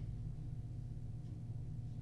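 Steady low hum of room tone, with nothing else happening.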